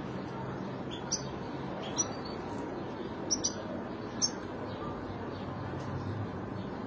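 European goldfinches calling: about five short, high chirps spread over the first four seconds, the loudest about two seconds in and just after four, over a steady low background hum.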